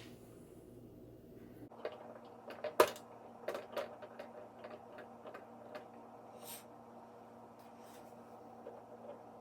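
Light clicks and knocks of hands working the turntable's plastic parts, a sharp knock about three seconds in followed by smaller irregular taps.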